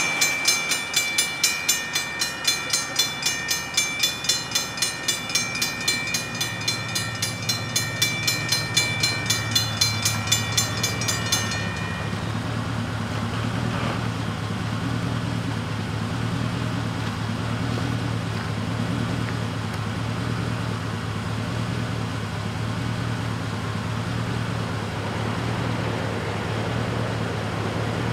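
Safetran mechanical grade-crossing bells ringing rapidly, about three strokes a second, while the crossing lights flash and the gates lower for an approaching train; the bells stop about eleven seconds in, once the gates are down. After that a low, steady engine hum is left.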